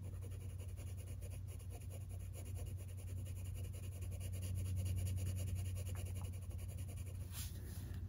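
Coloured pencil scratching faintly on paper in quick shading strokes, over a steady low hum.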